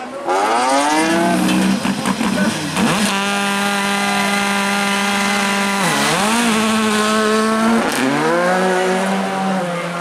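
Rally car engines revving hard: the pitch climbs in sweeps through the gears for the first few seconds, holds one steady note from about three to six seconds in, then dips sharply and climbs again. The cars include a BMW Z4 and a Škoda Fabia R5.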